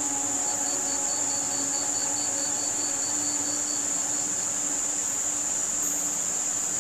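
Layered tinnitus-masking mix: a steady hiss of high-pitched white noise with crickets chirping in an even pulse, about five chirps a second, that stops about four seconds in. Held low music notes sound beneath.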